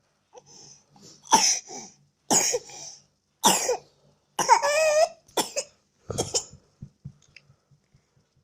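A young child coughing repeatedly: about six coughs, roughly one a second, some ending in a short voiced, whiny tone.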